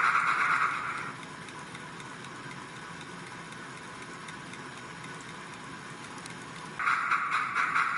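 Steam sound effects from a Soundtraxx sound decoder in a Hornby P2 model locomotive, played through its small speaker: a loud hiss that stops about a second in, then a quieter stretch, and the hiss starts again abruptly near the end.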